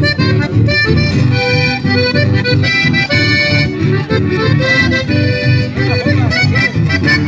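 Live folk quartet playing: a piano accordion carries sustained melody notes over two strummed guitars and a plucked double bass keeping a steady pulsing rhythm.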